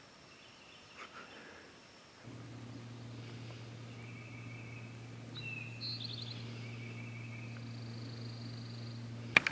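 Woodland birds calling, with short chirps and a trill, over a steady low hum that starts abruptly about two seconds in. A single sharp click near the end.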